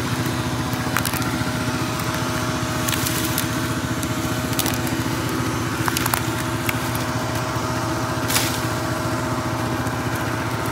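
A small engine running steadily at a constant speed, with a few sharp cracks of dry branches being handled.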